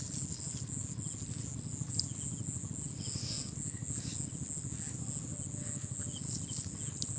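A steady, high-pitched insect chorus drones without a break, over a low steady rumble and a few faint ticks.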